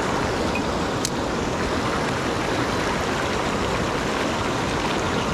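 Headwater mountain stream rushing steadily, with one light click about a second in.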